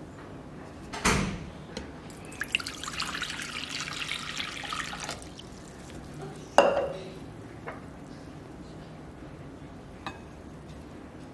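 Water poured from a drinking glass into an empty glass mixing bowl, splashing for about three seconds. A knock comes before the pour and a sharp glassy clink about a second after it.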